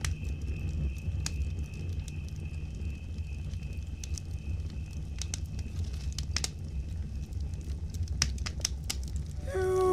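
Campfire crackling, with scattered sharp pops over a low steady rumble. Music comes in near the end.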